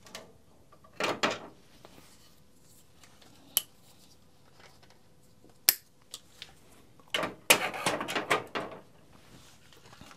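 Side cutters snipping through 2 mm nylon trimmer line, a single sharp snap a little past halfway, among scattered clicks from handling the line and spool; near the end a louder run of knocks and rustles as the tools and line are handled.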